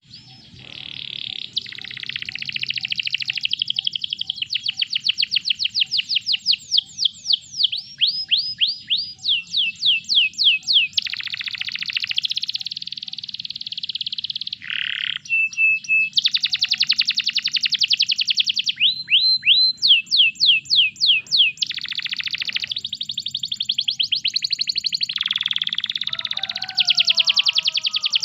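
Domestic canary singing a long, unbroken song of rapid trills and rolls. It switches every second or two between tours: fast rattling trills, rows of repeated down-slurred whistled notes, and short level notes.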